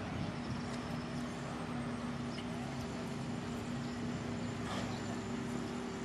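Lattice-boom crane's engine running at a steady pitch while it holds a load on its hook.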